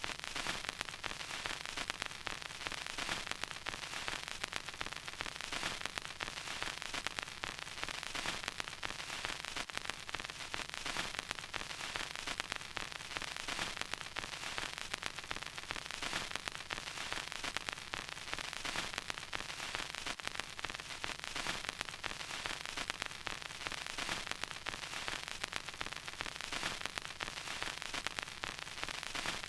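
Vinyl record surface noise: steady hiss with dense, irregular crackles and pops from the stylus in the groove.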